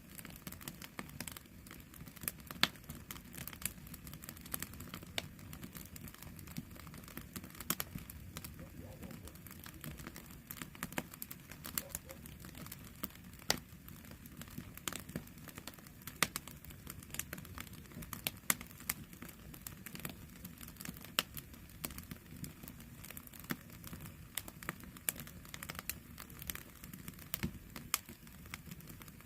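Wood campfire burning, with irregular sharp crackles and pops of the firewood over a low steady rumble of the flames.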